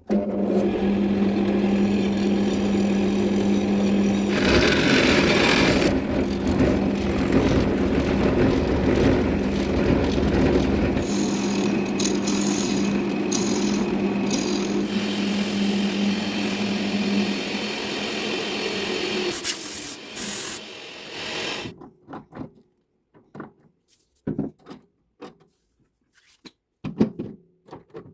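A wood lathe running with a steady hum while a tool or abrasive works against the spinning oak and epoxy resin blank, giving a rough scraping, rubbing sound. The lathe stops about 21 seconds in, followed by a few short knocks and handling sounds.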